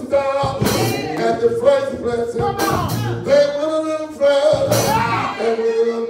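A male preacher chanting his sermon in a sung style, holding and bending long notes, with music behind him.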